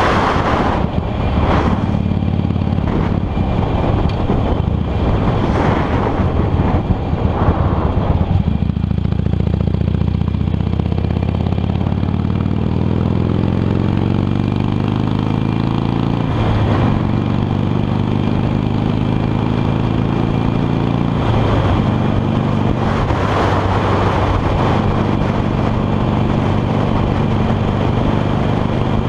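Harley-Davidson Sportster 883's air-cooled V-twin heard from the saddle at road speed, with gusts of wind on the microphone in the first several seconds. About a third of the way in the engine pulls with a rising pitch, then two gear changes each drop it briefly before it settles into a steady cruise.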